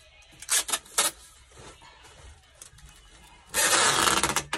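Packing tape pulled off its roll and across a cardboard box: two short rasps about half a second and a second in, then a loud screech of tape unrolling for about a second near the end.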